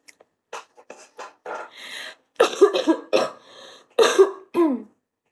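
A woman coughing into her hands: a fit of many short coughs that grows louder in the second half and ends with a few voiced, hoarse coughs. She takes the fit for a sign of being ill.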